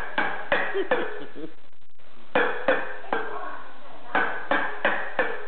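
A baby bangs a small metal pail: sharp clanks that ring briefly, in three quick bursts of three or four strikes.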